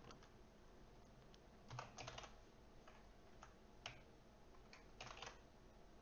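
Faint computer keyboard typing: a few short bursts of keystrokes with pauses between them.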